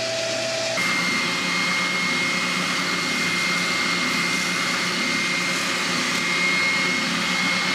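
A bandsaw cutting wood for the first moment, then an oscillating spindle sander running steadily with a high whine as a wooden cat shape is sanded on its drum.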